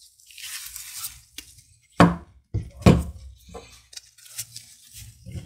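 An air rifle being turned over and laid down on a wooden bench: glove and handling rustle, with a sharp knock about two seconds in, a second knock shortly after and a few lighter taps of metal parts.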